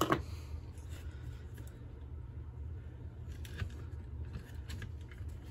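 A steady low hum with a sharp click just at the start and a few faint light clicks later, like small parts or tools being handled on a workbench.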